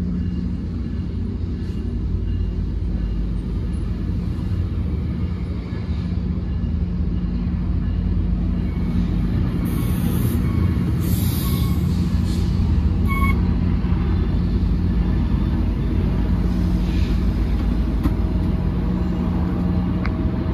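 Diesel locomotive idling with a steady low hum. About halfway through, air is let out in two short hisses, followed by a brief beep.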